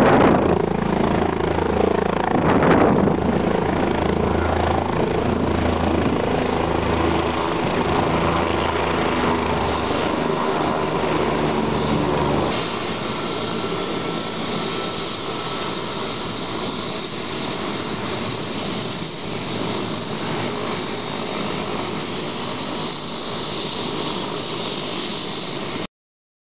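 Police helicopter running on the ground: steady engine and rotor noise with a strong low rumble. About halfway through the low rumble drops away, leaving a higher turbine hiss and whine. The sound cuts off suddenly just before the end.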